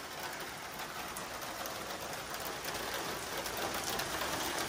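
Rain shower falling steadily on pavement and a parked car: an even hiss of drops that grows a little heavier toward the end.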